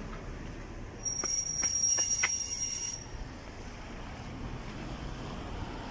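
A high-pitched steady squeal of about two seconds, starting about a second in, with a few sharp clicks in it, typical of a vehicle's brakes squealing over steady street traffic noise.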